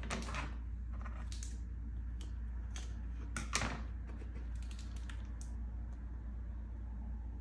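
Hands handling cardboard shipping boxes on a table: a scatter of taps, rubs and scrapes of cardboard, the loudest about three and a half seconds in as the small box is picked up and slid off the larger one. A steady low hum runs underneath.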